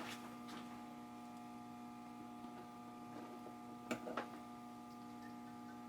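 Faint steady electrical hum, with two light clicks in quick succession about four seconds in.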